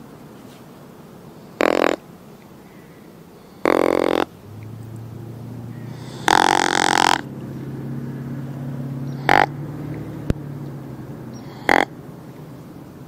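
Whitetail deer grunt call (grunt tube) blown by a hunter: five grunts a couple of seconds apart, the first three longer and the last two short, imitating a rutting buck to draw a buck in.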